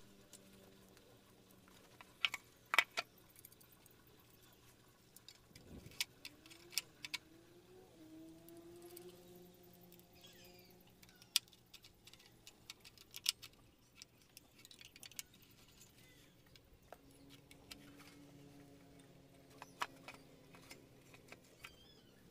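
Faint, scattered clicks, clinks and a few sharper knocks of metal fittings and a wooden board being handled as a handheld circular saw is bolted under a board to serve as a saw table.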